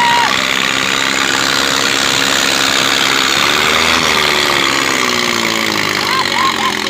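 Diesel tractor engines running steadily during a tractor tug of war. The engine note rises and then falls again about halfway through.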